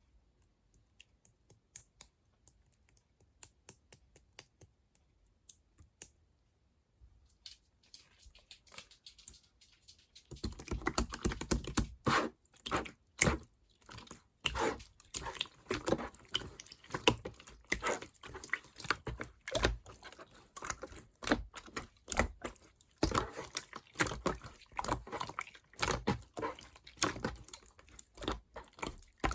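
Clear slime being squeezed and worked by hand, giving crisp clicking and crackling: sparse and faint at first, then dense and louder from about ten seconds in.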